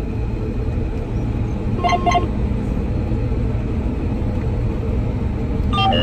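Steady drone of a John Deere 9770 combine harvesting soybeans, heard from inside the cab, with a quick double electronic beep from the cab electronics about two seconds in.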